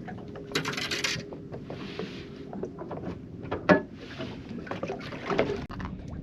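Irregular knocks, clunks and rustling from handling fish and gear aboard a small fishing boat. A hissy rustle comes about half a second in, and one sharp knock, the loudest, comes about three and a half seconds in.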